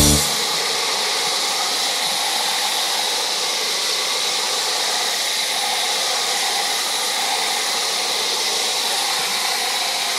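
WerkMaster Termite 1200C floor grinder running over a concrete floor: a steady, even hissing whir with little low end.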